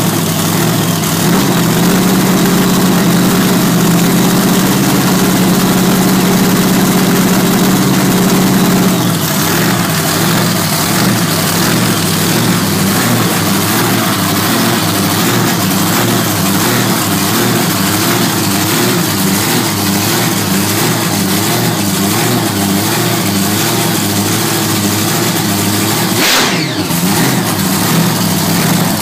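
Supercharged V8 engine of a Holden Gemini drag car idling loudly. About nine seconds in the idle settles lower and starts to hunt regularly up and down, and a brief rising sweep comes about 26 seconds in.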